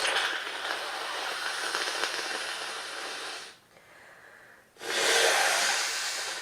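A person with a head cold blowing a congested nose into a tissue twice: a long blow of about three and a half seconds, then a shorter one about five seconds in.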